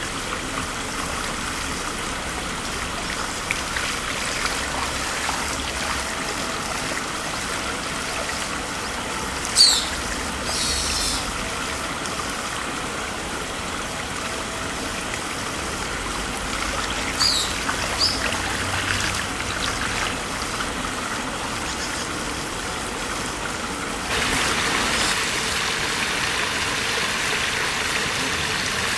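Shallow stream flowing and trickling steadily over a gravel bed, with a few short high bird chirps at about 10 and 17 seconds in. About 24 seconds in the sound changes abruptly to louder water spilling over a low concrete weir.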